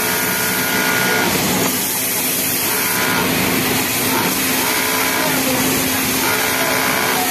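Yamato industrial flatlock sewing machine stitching in several short runs, about four, over a steady machine hum.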